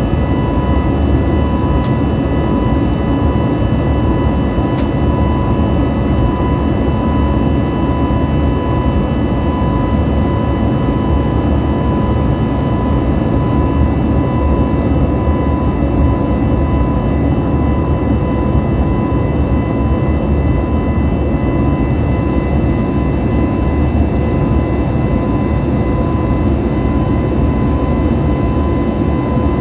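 Steady jet noise inside the cabin of an Airbus A320neo in flight: a loud, even rumble of engines and airflow, with a few steady whining tones on top.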